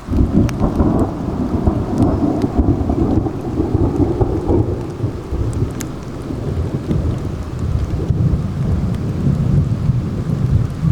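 Thunder cracks suddenly at the start and rolls on as a long, low rumble over steady rain. Scattered drops tick close by.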